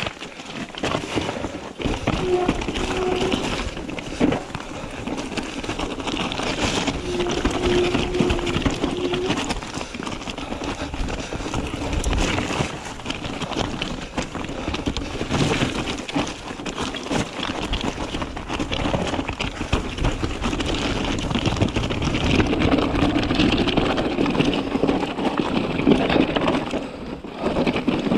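Mountain bike riding down a rocky singletrack: tyres crunching over loose stones and the bike rattling, with many sharp knocks as it hits rocks. A short steady buzzing tone comes through twice in the first ten seconds.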